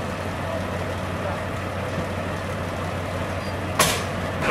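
Idling emergency-vehicle engine, a steady low hum and rumble, with one sharp knock near the end.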